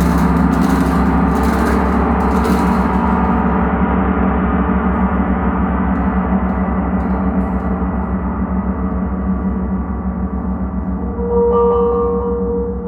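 A gong ringing on in a long, dense sustain, its high shimmer fading over the first few seconds while the low hum holds steady. About eleven seconds in, a new, clearer ringing tone comes in over it.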